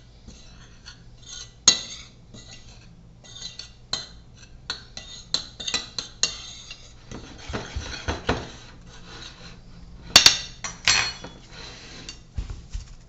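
Metal utensil clinking and scraping against a dish as seasonings are mixed into flour: irregular sharp clinks, a stretch of scraping around the middle, and a loud double clink about ten seconds in.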